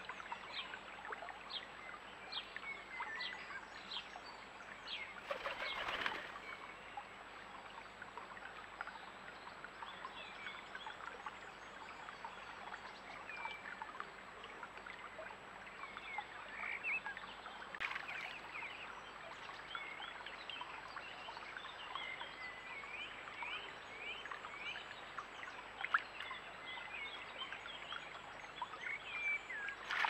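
Shallow stream running steadily under many short songbird chirps and calls. There are a few brief louder noises; the last, near the end, is a common wood pigeon splashing as it bathes in the stream.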